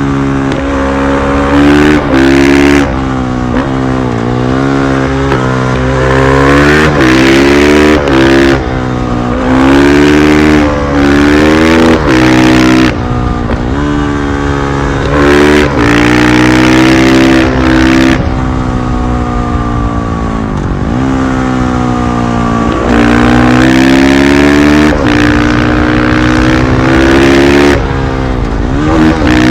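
KTM 500 EXC-F supermoto's single-cylinder four-stroke engine being ridden hard. Its pitch rises under throttle and falls back again and again, broken by brief sharp dips in level.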